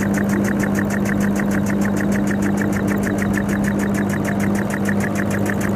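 Small acrylic single-cylinder compressed-air engine running steadily, its air exhaust and moving parts giving a rapid, even train of puffs and clicks, roughly nine a second, over a steady low hum.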